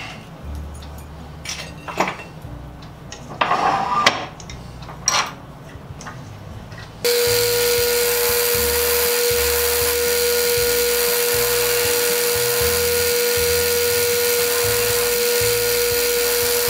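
Handling clicks and knocks as a wheel is fitted to a bench buffer's spindle, then about seven seconds in the buffer runs loud and steady with a constant whine, a green abrasive wheel scouring and polishing the steel plate of a handsaw, in footage sped up four times.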